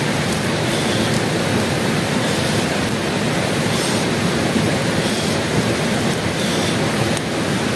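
Steady rushing of water, a stream or waterfall, as an even roar.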